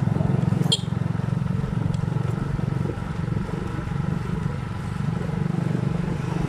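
Small motorcycle engine running steadily under way, heard from the bike itself, with a brief high chirp about a second in.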